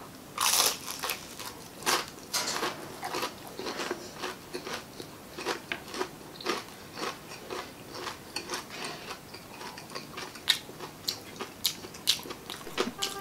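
Biting into crispy fried chicken skin and chewing it. The first bite gives a loud crunch about half a second in, followed by many short crisp crunches as it is chewed.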